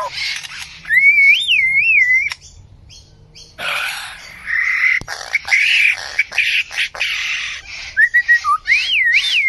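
A bird calling: clear, warbling whistles that rise and fall in pitch, about a second in and again near the end, with harsh, scratchy chattering in between.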